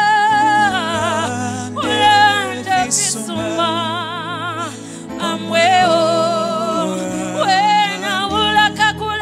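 Live gospel singing: a lead vocalist holds long notes with wide vibrato over keyboard chords played on a Yamaha MO6 synthesizer, phrase after phrase with short breaks between.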